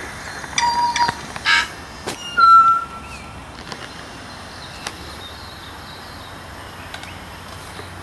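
Tui singing: a clear whistled note about half a second in, a harsh rasping note and a sharp click, then a louder pure whistle at about two and a half seconds. Fainter calls and clicks follow.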